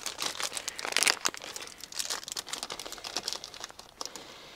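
A small packet of SLEC model-aircraft control horns being opened and handled: rapid crackling, loudest about a second in and dying away near the end.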